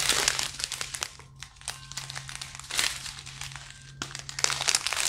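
Strip of thin plastic zip bags of round resin diamond-painting drills crinkling as it is handled, in several bursts, loudest near the start, about three seconds in, and near the end.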